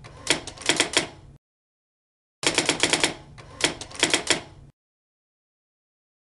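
Typing sound effect: rapid key clicks in two quick runs, the first stopping about a second and a half in and the second running from about two and a half to nearly five seconds in.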